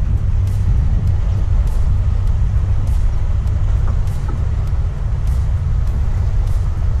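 A steady, loud low rumble with faint light ticks at regular intervals.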